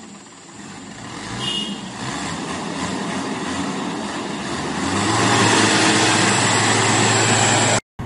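A mechanical, vehicle-like noise that swells steadily. A steady low hum joins about five seconds in, where it is loudest, and it cuts off abruptly just before the end.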